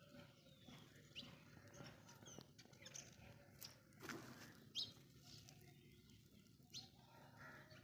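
Faint, scattered bird chirps, short calls a second or two apart. A few soft ticks fall among them over a low background hush.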